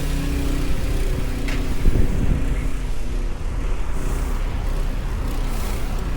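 City street traffic: a motor vehicle's engine running with a steady low rumble, with a brief louder moment about two seconds in.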